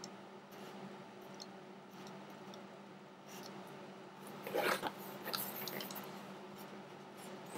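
Hot soldering-iron tip dotting the polymer grip of an airsoft Glock frame: faint scattered ticks and soft scratching over a steady low hum. About four and a half seconds in there is a louder rustle and scrape as the plastic frame is shifted on the work mat.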